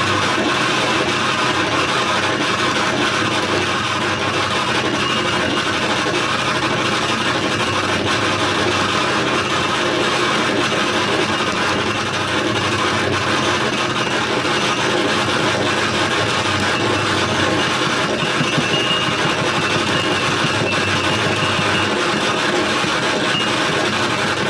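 Harsh noise music from an effects-pedal rig: a dense, steady wall of noise over a low hum, with a faint high whistle coming and going.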